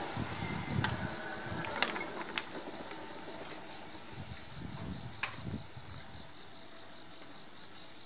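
Electric commuter train running away from the crossing, its noise fading. A few sharp clicks and low thumps come in the first half and again about five seconds in.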